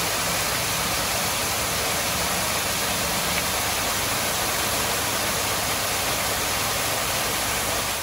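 Landscaped waterfall, several streams pouring over rock into a pool: a loud, steady rush of falling water.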